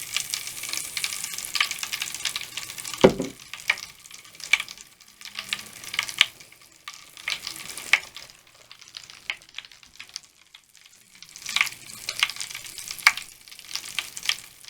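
Mr Bubble Magic Bath Crackles popping, fizzing and snapping as they dissolve in wet foam: a dense run of small, irregular crackles over a soft fizz. They thin out for a moment past the middle and then pick up again. One louder knock comes about three seconds in.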